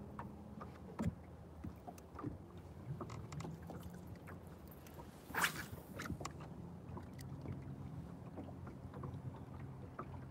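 A bass boat's electric trolling motor humming low, cutting in and out, while a fishing reel is worked with small scattered clicks. A brief louder rush of noise comes about five seconds in.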